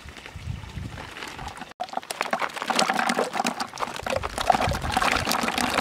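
River snails tipped from a woven basket into a wooden tub of water, splashing and clattering in a dense run of small splashes and clicks from about two seconds in. Before that there is only a faint low rumble.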